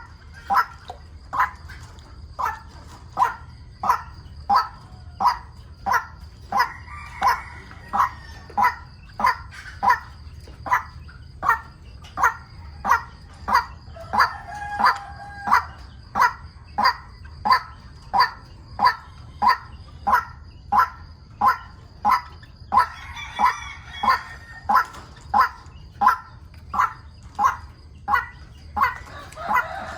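White-breasted waterhen calling, a short harsh note repeated at an even pace of a little more than one a second. A few broader, louder calls break in now and then, and a thin steady high whine runs underneath.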